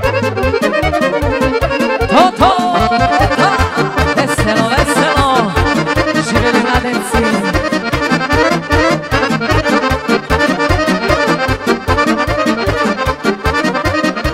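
Live Balkan folk dance music for a kolo, played without vocals: an accordion leads the melody over a fast, steady beat.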